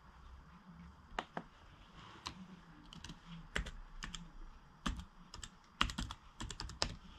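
Typing on a laptop keyboard: irregular single keystrokes, then a quicker run of keys in the last second or so.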